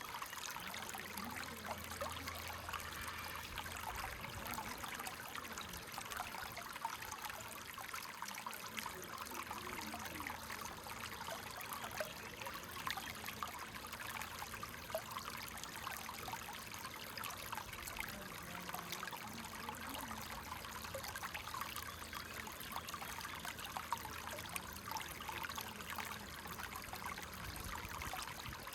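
Shallow creek water flowing and trickling, a steady babble dotted with many small splashes.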